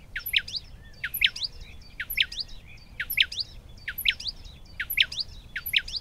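Bird-like chirping: a quick group of high downward-sweeping whistles, repeated evenly about once a second.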